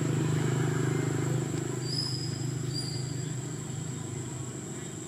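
A motor engine droning steadily and slowly fading, with two short high whistles a little past halfway.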